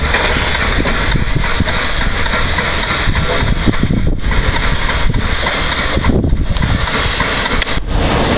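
PKP class Ol49 steam locomotive hissing steam: a loud, steady hiss with a low rumble underneath and a thin high tone over it, dipping briefly a few times.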